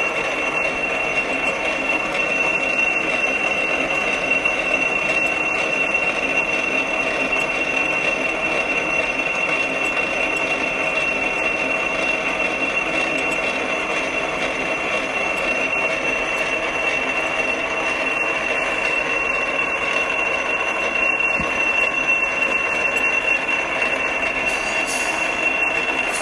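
Drilling machine running steadily, turning a lapping tool against a valve body seat: a steady high whine over a dense grinding rattle.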